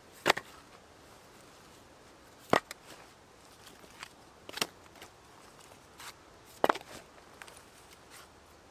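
Split firewood logs dropped one by one onto a woodpile, each landing with a sharp wooden knock. There are four loud knocks about two seconds apart, with lighter clatters of wood settling between them.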